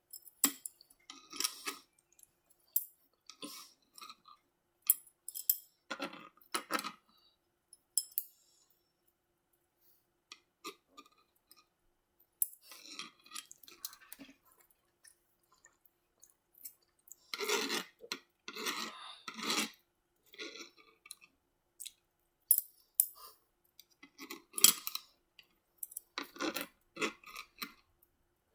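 Close-miked eating of shrimp lo mein and orange chicken: irregular clicks and scrapes of cutlery against a food container, mixed with chewing. There is a denser run of longer scraping and chewing sounds a little past halfway.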